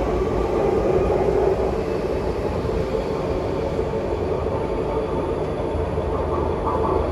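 SMRT C151 metro train with GTO chopper traction running along the track: a steady rail rumble with a steady mid-pitched hum.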